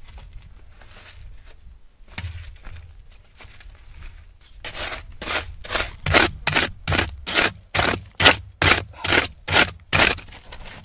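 A wooden pole's end jabbed repeatedly into coarse gravel, each stroke a crunching scrape. It starts light and scratchy, then about halfway through it turns into hard, regular strikes at about two a second.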